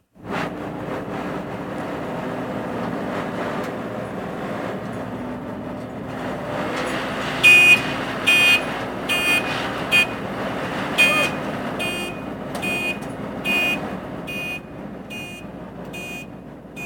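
A vehicle engine running steadily. About seven and a half seconds in, a reversing alarm starts beeping, a little faster than once a second: a machine is backing up.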